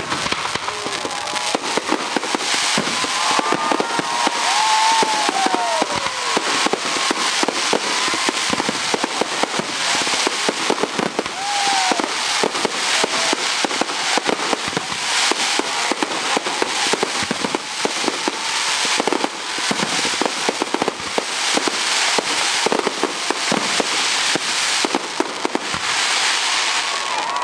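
Fireworks display: aerial shells bursting and crackling in a dense, continuous run, many bangs close together with no pause.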